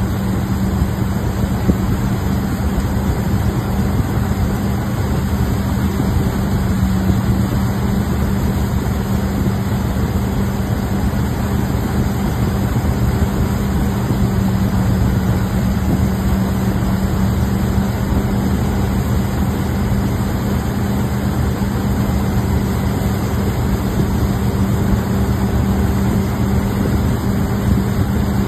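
Wake boat's engine running steadily under way, a constant low hum over the rushing, churning water of the wake behind the stern.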